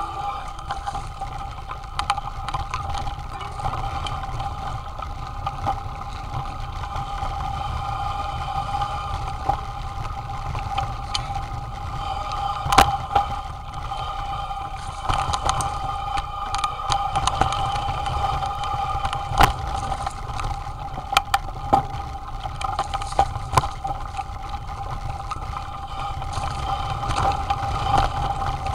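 Mountain bike riding down a rough dirt trail, heard from a camera on the bike or rider: a constant low rumble with sharp rattles and knocks over the bumps, over a steady high hum.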